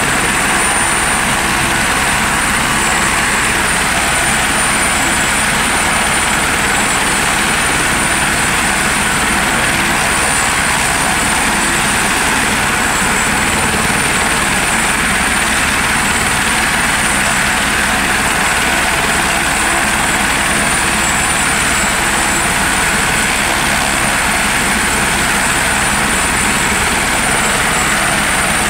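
Police helicopter running close by: loud, steady rotor noise with rapid low pulsing and a constant high whine.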